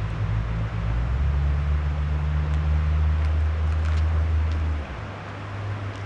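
Low, steady rumble of a running vehicle engine over a constant hiss; the rumble drops and changes about five seconds in. A few faint clicks sound in the middle.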